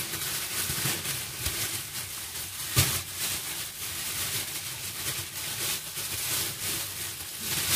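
Plastic roasting bag crinkling and rustling as it is twisted and knotted shut by hand, with vegetables shifting inside. One sharper crackle comes just under three seconds in.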